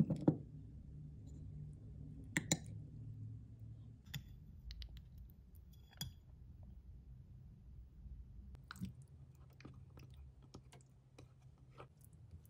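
Metal spoon stirring yogurt and chopped strawberries in a glass mug, with scattered clinks of spoon against glass and soft squishing, over a low steady hum.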